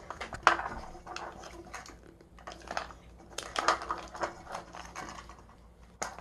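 Plastic surprise capsule and its wrappers being handled and pulled apart by hand: irregular small clicks, taps and rustling, with a louder clack about half a second in and a busier cluster of taps past the midpoint.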